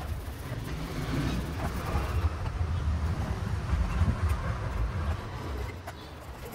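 Metal gearbox parts handled and scrubbed in a tub of oil, with a few faint light clicks of metal, over a steady low rumble.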